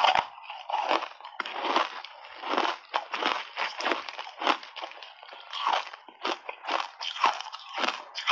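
Ice chunks coated in matcha powder being bitten and chewed: a loud crunch as a big bite is taken at the start, then steady, irregular crunching as the ice is chewed.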